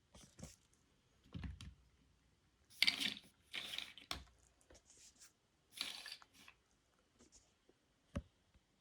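LEGO bricks being handled: irregular plastic clicks and rustling, with a sharp click near the end.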